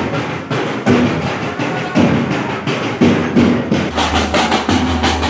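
Procession drum band playing a steady rhythm: a big bass drum with snare-type side drums beaten with sticks. The deep bass drum strokes come in much heavier about four seconds in.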